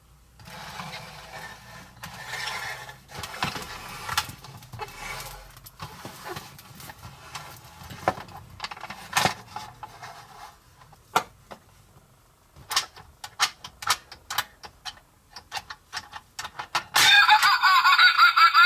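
Plastic crocodile-dentist toy and plastic surprise eggs being handled, with rustling and scattered clicks, then a quick run of sharp plastic clicks as the crocodile's teeth are pressed down. Near the end the jaw snaps shut and a loud giggling laugh sound starts.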